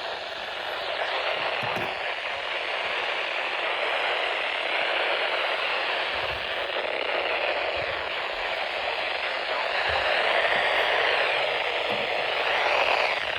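Weather-band FM radio static: a steady hiss from a NOAA Weather Radio receiver with no audible voice, the sign of a weak, distant station fading out, with a few faint low pops.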